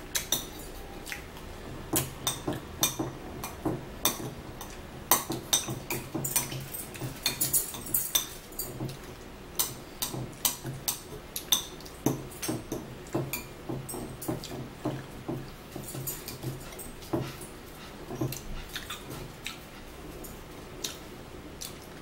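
Close-up chewing and lip-smacking while eating: many sharp, wet mouth clicks coming irregularly, several a second, thinning out near the end.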